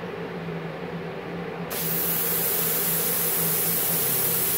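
Compressed air is switched through to a Multipro Cut 120 GTY plasma cutter. A loud, steady hiss of flowing air starts suddenly about a second and a half in, over a steady hum from the machine.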